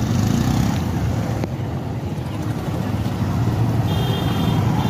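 Motorcycle riding in slow traffic: steady engine and road noise with a dense low rumble. A brief high-pitched beep, like a vehicle horn, sounds about four seconds in.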